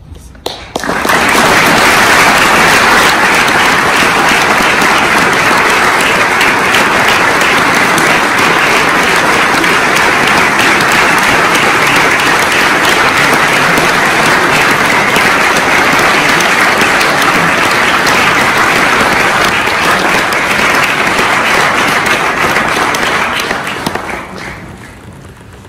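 Audience applauding: steady, dense clapping that starts about a second in and dies away near the end.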